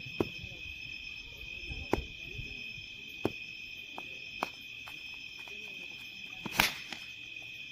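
Night insects, such as field crickets, chirping in a steady, high, unbroken chorus. A few sharp clicks or knocks stand out over it, the loudest about six and a half seconds in.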